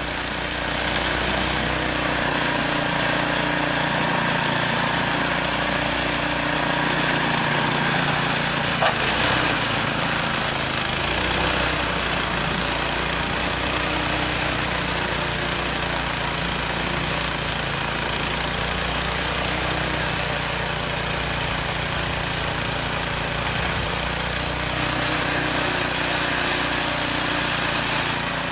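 Snowblower engine running steadily.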